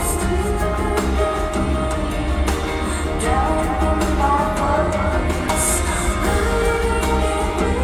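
Live concert music from a band with a strong, steady bass, and a woman's singing voice over it.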